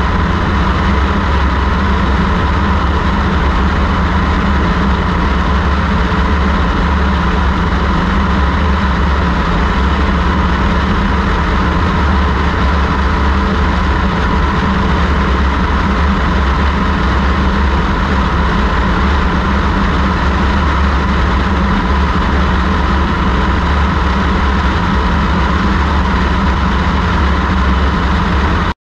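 Light high-wing aircraft in cruise flight: steady drone of its engine and propeller with rushing airflow, heard from outside the airframe. The sound cuts off suddenly near the end.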